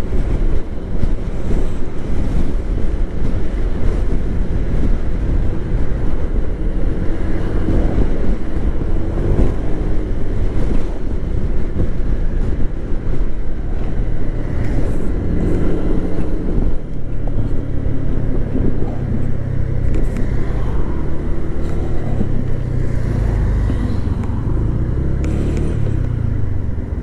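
Scooter engine running under way with steady wind rush, heard muffled through a microphone inside the helmet lining.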